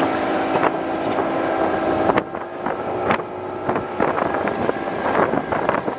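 Motorboat engine running steadily under way, with wind blowing on the microphone and a few sharp knocks.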